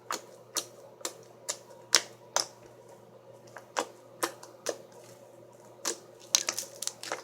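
Bubbly slime made with glue and foaming hand soap being squeezed and worked in the hands, its trapped air bubbles popping in sharp, irregular clicks about twice a second, with a short lull a little after two seconds in and a quick cluster near the end.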